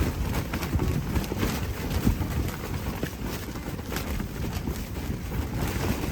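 Strong wind buffeting the microphone with a steady low rumble, with many small irregular clicks and taps over it.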